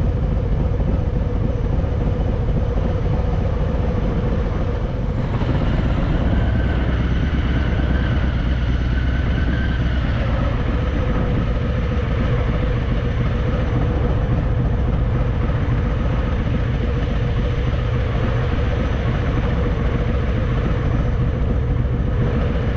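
Harley-Davidson Fat Boy's V-twin engine running steadily, with a constant rush of noise over it.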